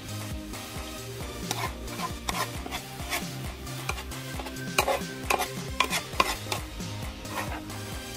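Fried rice being stirred and scraped on a flat griddle pan with a slotted spatula and a metal spoon. The utensils make irregular scrapes and clicks against the pan, loudest a little past the middle.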